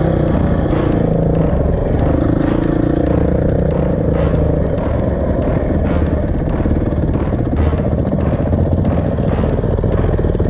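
Motorcycle engine running steadily, its note shifting a little, with many short ticks and clatters over it.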